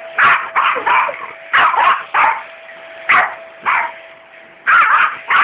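A dog barking repeatedly and loudly in short clusters of sharp barks, provoked by a hoover vacuum cleaner. A faint steady hum runs underneath.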